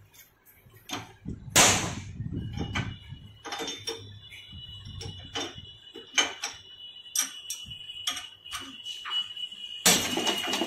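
Steel tools and diesel injector nozzle parts being handled in a bench vise: scattered metallic clicks and knocks, one louder knock about a second and a half in. A steady high-pitched tone runs underneath from about two seconds in until near the end, and a short burst of hiss comes near the end.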